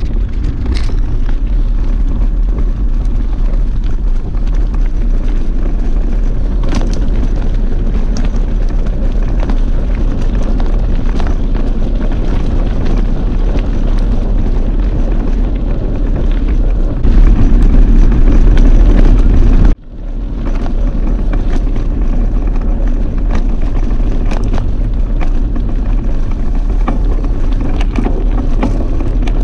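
Wind buffeting the camera's microphone while mountain biking on a gravel track, a loud steady rumble with scattered rattles and knocks from the bike over the stones. It swells louder about two-thirds through, then cuts out for an instant before carrying on.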